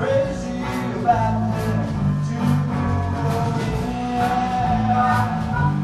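Live blues band playing an instrumental passage: a harmonica solo in long, slightly bending held notes over electric guitar, bass and drums, with cymbal hits on a steady beat.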